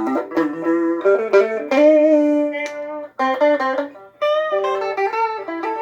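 Electric guitar playing a single-note lead line through a Strum Buddy guitar-mounted speaker with its chorus effect on: picked notes in short phrases, with a bent note near the start.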